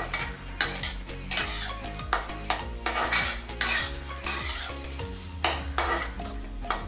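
Spatula scraping and stirring prawns frying in oil in a wok: repeated sharp scrapes against the pan, roughly two a second, over the sizzle of the frying.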